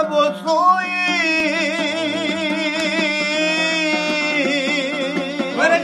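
A man sings one long held note with vibrato in a folk song, accompanied by a pandur, a plucked long-necked lute. The plucking comes back strongly near the end.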